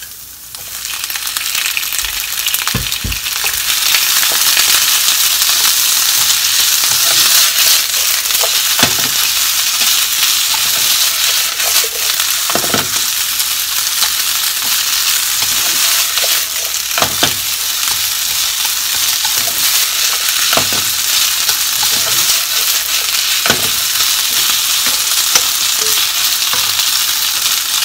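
Beef, bamboo shoots and garlic sprouts sizzling in a hot non-stick frying pan while being stir-fried with wooden chopsticks, which knock against the pan now and then. The sizzle swells over the first few seconds as the beef goes back into the pan, then holds steady.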